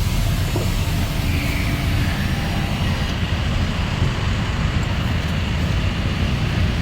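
Car running, heard from inside the cabin: a steady low engine and road rumble.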